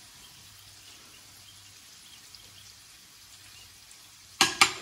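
Low kitchen room noise with a faint hum, then a little over four seconds in a metal spoon clinks sharply against a ceramic plate two or three times in quick succession.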